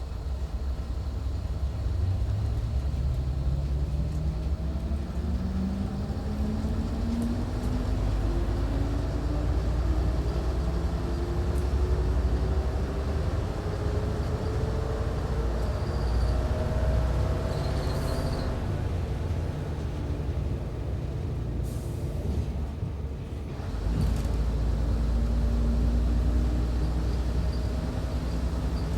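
Diesel railcar's engine and drive heard from inside the driver's cab, its pitch rising slowly and steadily for about fifteen seconds as the railcar picks up speed, then falling away. A few seconds later a deeper, louder steady rumble takes over.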